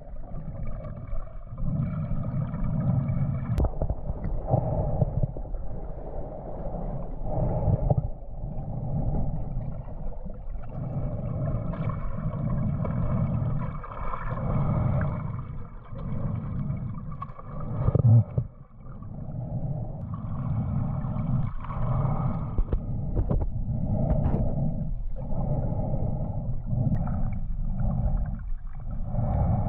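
Muffled water gurgling and sloshing, rising and falling in uneven swells every second or two, with one louder surge about two-thirds of the way through.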